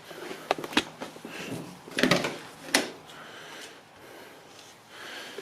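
Several sharp knocks and clunks with some rustling in between: handling and moving about in and around the car, as when getting into the cabin.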